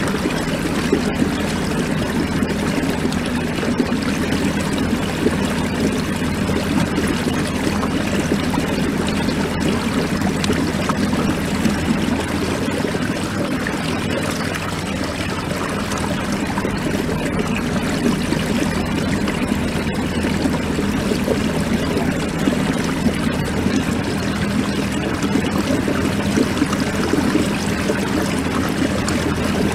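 Water rushing and trickling along the hull of a fishing kayak under way on its motor, with the motor's steady low hum underneath.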